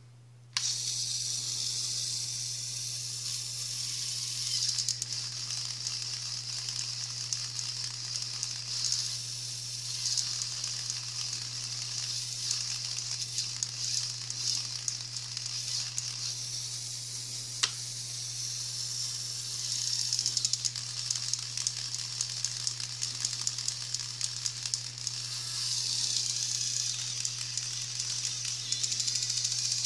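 Lego Power Functions motor switched on about half a second in, driving a small Lego Technic automatic gearbox: plastic gears whirring with a steady high-pitched chatter. A single sharp click comes just past halfway, and the running gets louder for stretches in the last third.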